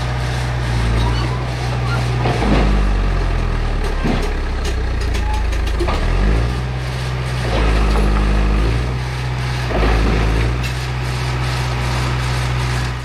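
John Deere 450 crawler dozer engine running hard. Its note sags and recovers several times as load comes on and off, with knocks and rattles from the machine.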